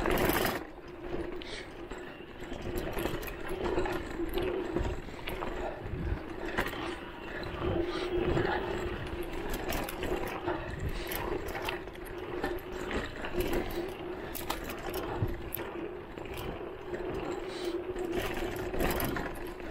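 Voltbike Enduro electric mountain bike's motor whining at a steady pitch under way on a bumpy trail, with frequent rattles and knocks from the bike going over bumps; a loud knock comes right at the start.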